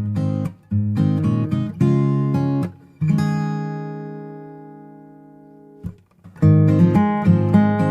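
Background music: acoustic guitar strumming chords, with one chord left ringing and fading for about three seconds in the middle before the strumming starts again.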